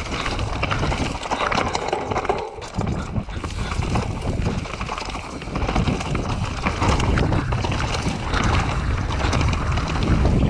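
Full-suspension mountain bike riding fast down a rocky trail: tyres crunching and knocking over loose stones and the bike rattling and clattering continuously, with wind rushing over the microphone. The clatter eases briefly about two and a half seconds in.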